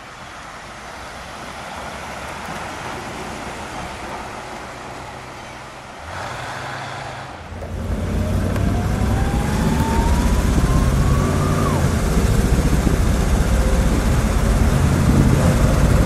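1960 Ford Thunderbird's 430 cubic-inch Lincoln V8 approaching and driving past, swelling and then fading. About halfway through, the engine is heard from inside the car as it drives, much louder, with a deep steady drone and a faint rising whine.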